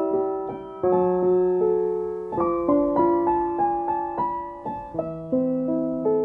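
Solo piano music, with notes and chords struck about once a second, each left to ring and fade.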